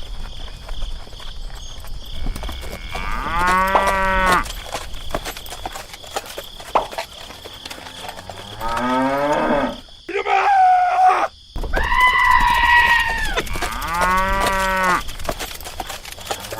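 Cattle mooing: a series of drawn-out calls, one every few seconds, some higher-pitched than others.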